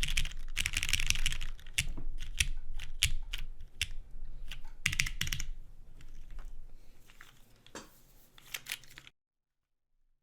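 Keycult No.1 Rev 2 mechanical keyboard with lubed Hyperglide MX Brown tactile switches on a polycarbonate half plate and GMK keycaps, being typed on. Fast continuous typing at first, then slower scattered keystrokes that stop about nine seconds in.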